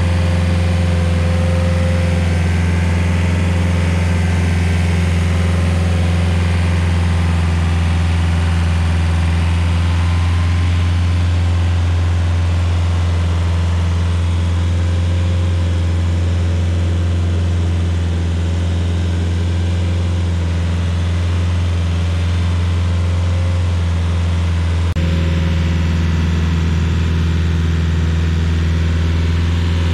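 Rayco RG50 stump grinder's engine running steadily, a low, even drone with no change in load. A slight jump in the sound about 25 seconds in, after which the same steady engine note continues.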